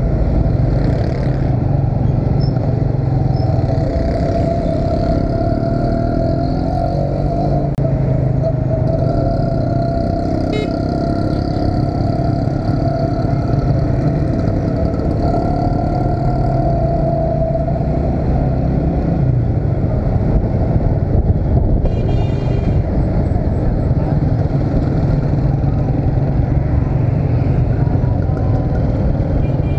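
Honda motorcycle's engine running steadily while riding through busy city traffic, over a heavy low rumble of wind and road noise, with other motorcycles and cars around.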